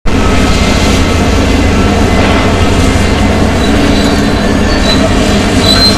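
Excavators, one a John Deere, working a building demolition: a loud, steady low rumble of heavy machinery, with thin, high metallic squeals coming and going, strongest near the end.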